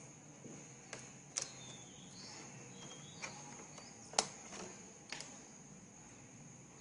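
Plastic clicks and snaps as a thin plastic card is worked under the edge of a laptop keyboard, prying its locking tabs free: about five sharp clicks, the loudest a little past four seconds in.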